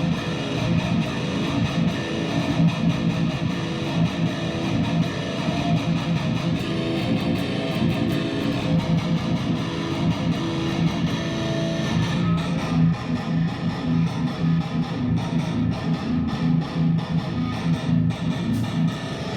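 Background music led by electric guitar, playing a steady, rhythmically repeating riff.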